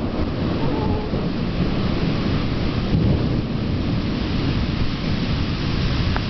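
Thunderstorm: steady rain with a continuous low rumble of thunder that swells slightly about halfway through.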